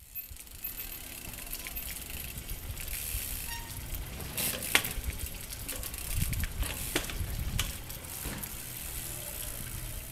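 Water from a fountain spout splashing steadily into a concrete trough. A trials bike's tyres give a sharp knock a little before halfway and dull thuds about two-thirds through as it hops over the trough.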